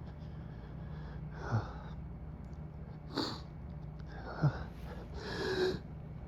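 A man's held-back sneezing fit: four short breathy gasps and catches of breath, about a second apart, as a sneeze builds, over the steady hum of an air conditioner.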